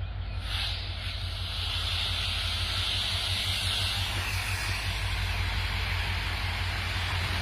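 Train in motion: a steady low rumble with a loud rushing hiss that comes in about half a second in and stays.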